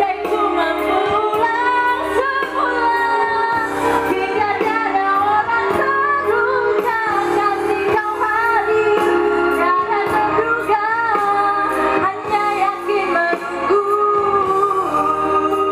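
A female singer singing a song live over loud band accompaniment, her voice carrying the melody in long, sliding notes.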